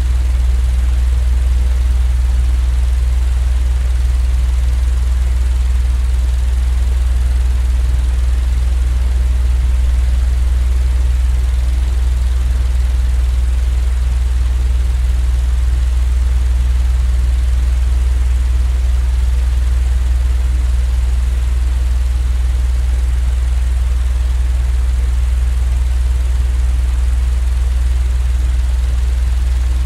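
Steady, unchanging low rumbling drone played as sleep noise, its weight in the deep bass with a faint even hiss above.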